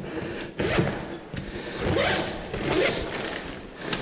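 Zipper of an insulated food-delivery backpack pulled in a few quick swishing strokes.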